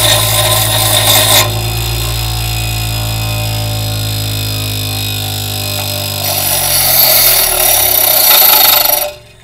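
Bench grinder with a diamond wheel dresser scraping across the grinding wheel for about the first second and a half to true its face. The grinder is then switched off and its motor hum falls in pitch as the wheel winds down, and about six seconds in the dresser is held to the coasting wheel again, a rough scraping that grows louder and cuts off suddenly near the end.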